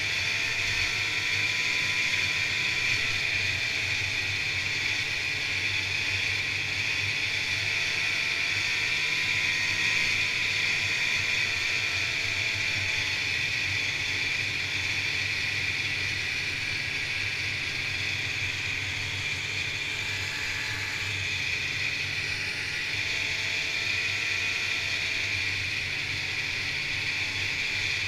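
Snowmobile running steadily along a trail at cruising speed: a constant engine drone with a high steady whine over it, the engine pitch drifting up and down a little with the throttle.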